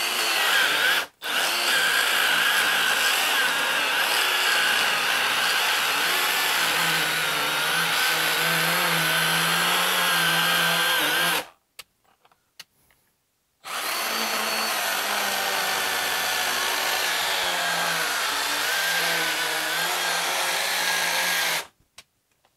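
Milwaukee M12 Hatchet 6-inch battery pruning saw, a small brushless chainsaw, running steadily as its chain cuts through a thick log to finish the cut. It stops briefly about a second in, runs for about ten seconds, cuts out for about two seconds midway, then runs for about eight seconds more and stops.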